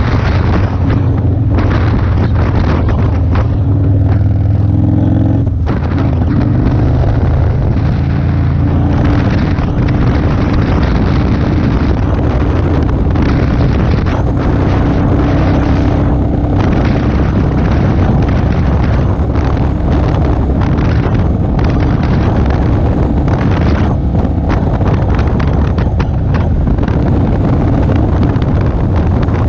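Motorcycle engine running at road speed under heavy wind buffeting on the microphone. The engine note swells about four to five seconds in and dips briefly just after.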